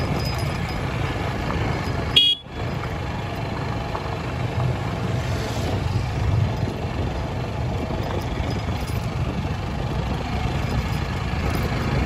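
A motor vehicle's engine running steadily with a low rumble, with a short horn toot about two seconds in. Just after the toot the sound drops out for a moment.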